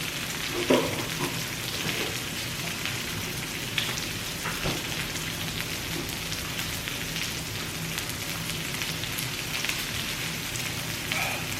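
Pork belly sizzling as it grills, a steady hiss with a few faint clicks over it.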